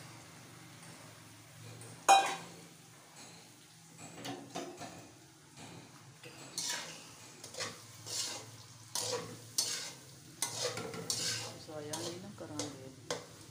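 A metal spoon stirring, scraping and clattering against a steel cooking pan, with a sharp clank about two seconds in.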